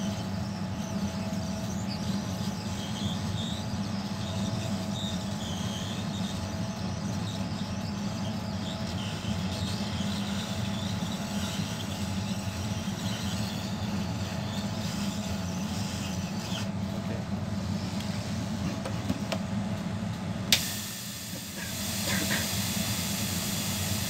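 Hot-air rework station blowing a steady hiss of hot air while heating the resistors beside a chip on a desktop motherboard. A sharp click comes near the end, after which the hiss turns higher.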